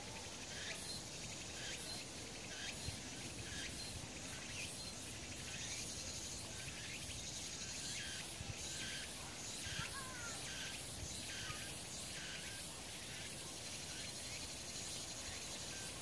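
Cicadas calling in the summer forest canopy: a steady high buzz with repeated short pulsing calls, about two a second.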